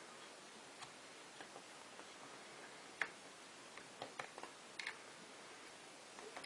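Faint, scattered small clicks and taps of a model locomotive's parts and tools being handled, over a steady low hiss. The sharpest click comes about three seconds in, with a cluster of lighter taps a second later.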